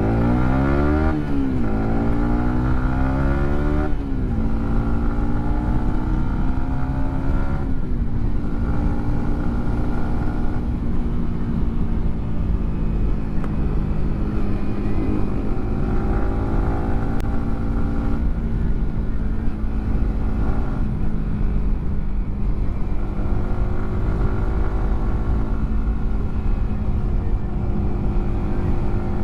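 Yamaha R15 M's single-cylinder engine through a WRX GP3 aftermarket exhaust, revving up and shifting up quickly three times in the first eight seconds, with the quickshifter fitted. It then settles into cruising, its note rising and falling gently.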